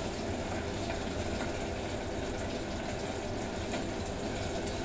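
Food deep-frying in a pan of hot oil: a steady sizzle with faint crackles, over a steady low hum.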